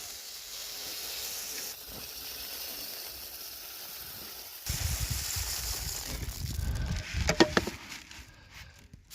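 Birdseed pouring into a bird feeder with a steady hiss. About halfway through, a low rumble of wind on the microphone joins it, and a few short squeaky sounds come about seven seconds in.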